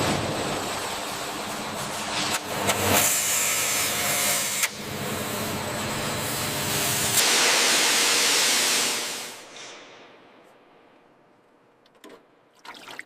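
Steady mechanical hissing noise with a few knocks. About seven seconds in, a louder, brighter rush of hissing air or spray takes over, then fades out over a couple of seconds, leaving near quiet and a few faint clicks.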